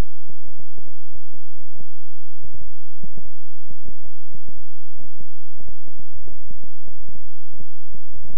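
Synthesized 'healing frequency' tone track: a steady low electronic hum with irregular deep throbbing pulses, about three to four a second, each with a faint click on top.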